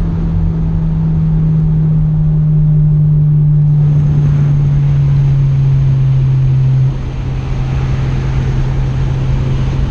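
Honda S2000's four-cylinder engine and exhaust droning steadily at a constant engine speed while the car is driven, heard from inside the cabin. About seven seconds in the pitch drops a step and the sound gets slightly quieter.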